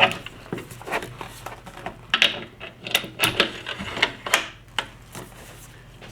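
Mosin-Nagant bolt being slid into the rifle's receiver with the trigger held back: a quick run of metallic clicks, scrapes and knocks that stops about five seconds in.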